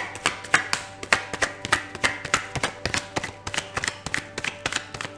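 A deck of tarot cards being shuffled overhand by hand: a quick run of sharp card slaps, several a second, over faint background music.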